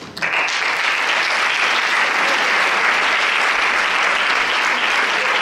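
Audience applauding, starting abruptly right at the start and holding steady.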